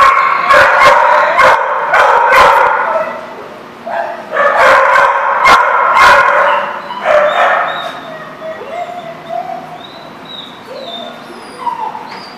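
Dogs barking and yipping in rough play, in two loud bursts over the first seven seconds or so. After that it goes quieter, with a few short whines.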